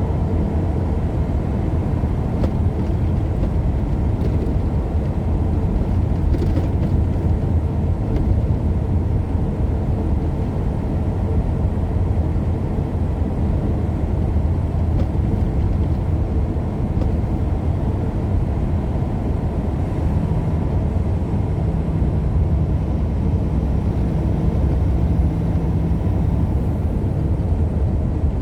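Steady engine and road noise from inside a moving vehicle, a constant low rumble with an even engine drone.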